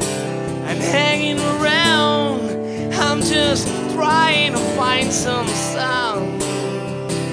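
Live acoustic song: acoustic guitar holding a chord under a high melody line that comes in short phrases, each bending and wavering in pitch.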